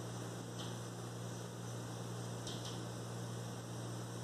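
Steady electrical mains hum with a faint hiss, and a couple of faint, brief high-pitched ticks about half a second and two and a half seconds in.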